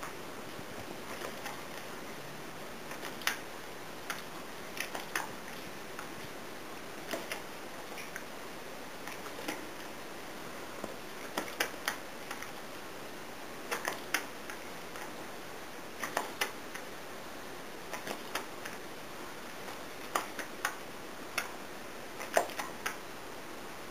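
Scattered short, sharp clicks and snaps from hand-feeding a dog treats, its jaws snapping and chewing on the pieces, every second or two over a steady hiss. The loudest comes near the end.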